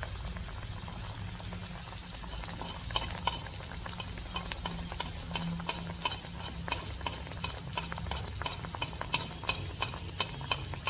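An anarasa deep-frying in hot ghee in an aluminium kadhai, with sharp crackling pops that start about three seconds in and grow more frequent, while a spoon moves through the ghee beside it.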